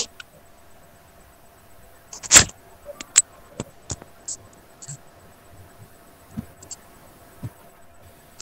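Irregular light clicks and knocks, with one louder knock about two seconds in.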